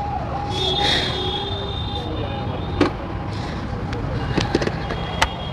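Road traffic noise with a steady low rumble, overlaid by a repeating electronic tone that slides down in pitch again and again, and a few sharp clicks.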